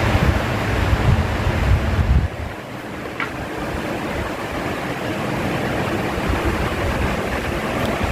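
Electric fan running, its airflow buffeting the microphone with a low rumble. The rumble drops off suddenly about two seconds in, then slowly builds back.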